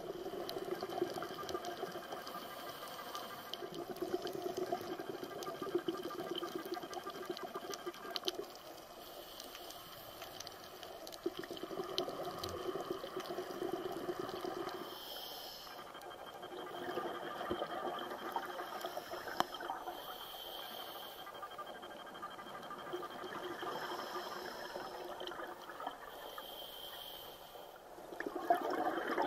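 Scuba diver's regulator breathing heard underwater through the camera housing. Exhaled air bubbles out in stretches of a few seconds, repeating, with short hisses between them. The bubbling gets louder near the end.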